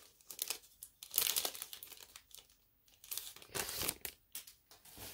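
Clear plastic wrapping around a set of photo prints crinkling as it is handled. There are two main rustling bursts, about a second in and just past three seconds in, with smaller crinkles between.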